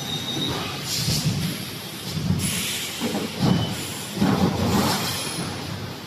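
Steel wire mesh panel welding machine running, with repeated low mechanical strokes and bursts of air hiss at an uneven pace of roughly one a second.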